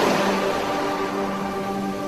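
Soft relaxation music holding long sustained chords over the wash of ocean waves, the surf easing off as a wave recedes.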